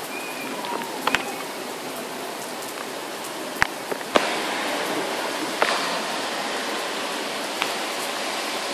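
Steady rain, with a few sharp clicks of single drops striking close by. The rain grows louder about four seconds in.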